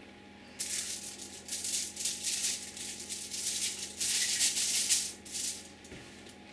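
Aluminium cooking foil crinkling in irregular bursts as hands press and smooth it, stopping near the end.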